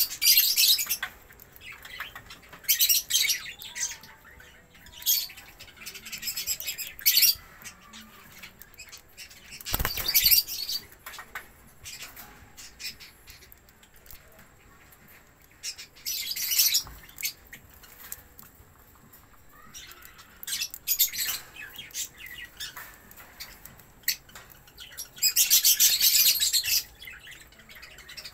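Budgerigars chirping and squawking in repeated short, high-pitched bursts, with a single thump about ten seconds in.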